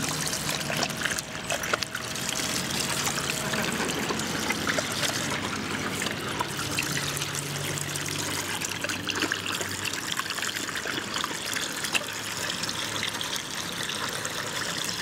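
Water spraying steadily from a foot-pedal dog drinking fountain into its steel basin, with a dog lapping at the stream.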